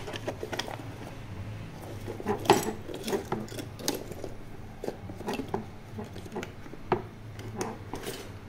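Small hard objects of plastic and metal clicking and clattering against each other as a hand rummages through a case of junk. The clicks come irregularly, with a louder knock about two and a half seconds in and another near seven seconds.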